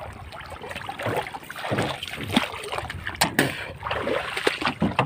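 Water splashing and sloshing with irregular knocks and thumps around a small boat.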